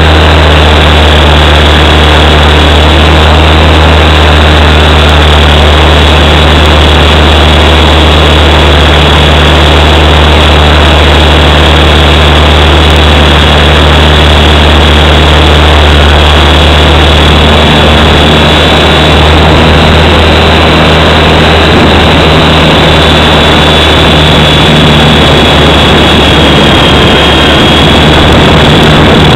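V912 mini electric RC helicopter's rotor and motor running in flight, heard from a camera mounted on its skids: a very loud, steady low rotor hum with a thin high motor whine on top that wavers slightly near the end.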